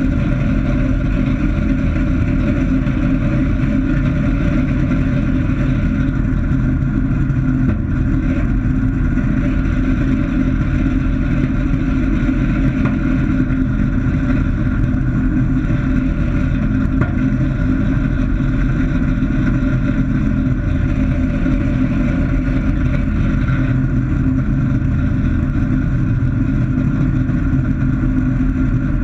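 Light experimental aircraft's engine and propeller running steadily on the ground, heard from inside the closed-canopy cockpit as an even drone with a constant pitch.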